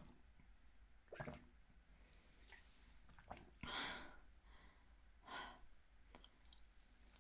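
A swallow of water drunk from a plastic bottle, then two breathy exhales, the louder just past halfway and a softer one about a second and a half later.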